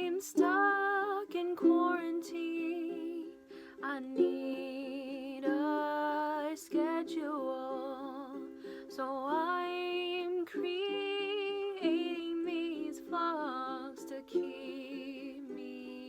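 A song: a woman singing over a steadily strummed string accompaniment.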